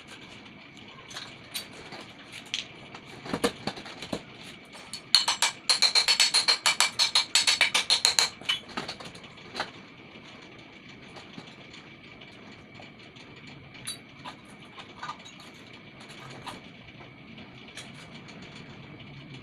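Hand tools and metal water-pump parts clicking and knocking as the parts are worked on, with a run of rapid, sharp scraping strokes from about five to eight and a half seconds in. A faint steady high tone runs underneath.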